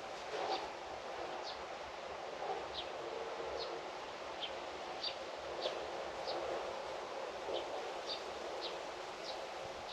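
Small birds chirping: short, high, downward-sliding notes, one or two a second at irregular spacing, over a steady background hiss of outdoor ambience.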